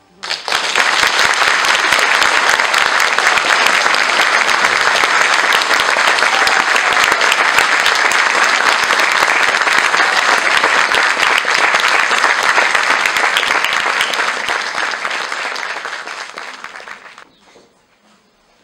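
Audience applauding: dense clapping that starts suddenly, holds steady, then dies away near the end.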